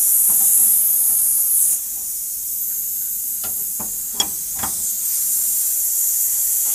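R32 refrigerant gas hissing at the charging hose and brass service-valve fitting of a split air conditioner's outdoor unit. The hiss is loud, then drops sharply after nearly two seconds and carries on more softly. A few short metallic clicks come from the wrench and fittings around the middle.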